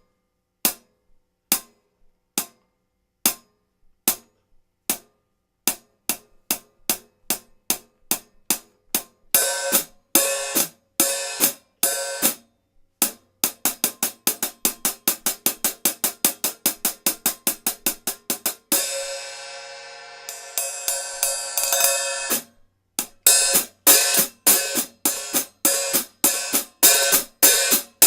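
A 14-inch Sabian AA hi-hat being struck: single short closed strikes that speed up into a steady rhythm, then looser, washier strokes. A fast run of closed strikes follows, then an open hit left ringing for about three seconds before the rhythm resumes.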